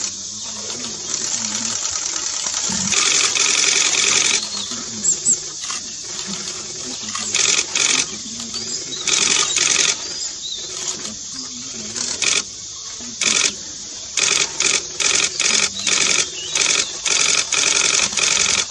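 Loud buzzing of forest insects, starting and stopping in pulses: one long stretch about three seconds in and rapid short bursts in the second half, with a few short high chirps about five seconds in.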